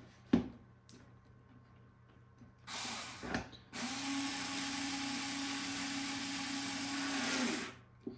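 Cordless electric screwdriver driving a screw into a plastic mount: a sharp click just after the start, a short burst of the motor about three seconds in, then a steady run of about four seconds with an even hum that stops as the screw seats snug.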